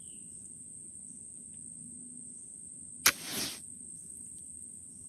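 Steady high trill of crickets, and about three seconds in a single sharp crack followed by a brief rushing hiss: a Pedersoli .45 flintlock dueling pistol going off.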